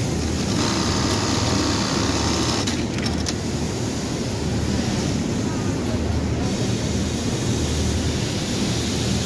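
Steady hum and hiss of running machinery in a sewing workshop, with a brighter hiss for a couple of seconds about half a second in.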